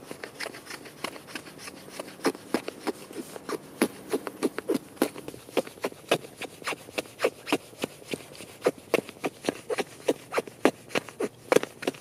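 Small axe blade shaving curls off a white pine stick: a quick run of short, sharp scraping strokes, about three a second, cutting tinder shavings for a fire.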